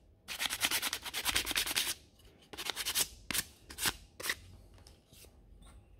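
Fine sandpaper rubbed by hand over the edge of a small wooden piece to take off splinters: a quick run of short strokes for about two seconds, then a handful of separate strokes, fading out after about four seconds.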